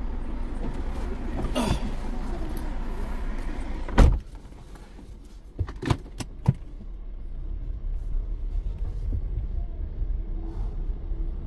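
Car wash's motorised roll-up door opening, a rushing whir that ends in a loud thump about four seconds in, followed by a few lighter clicks. A car engine idles low underneath, heard from inside the cabin.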